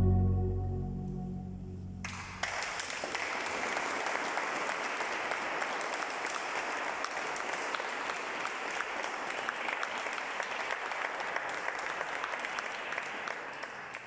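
The baroque ensemble's final chord dying away in the church's reverberation. About two seconds in, audience applause starts, steady and dense, and fades near the end.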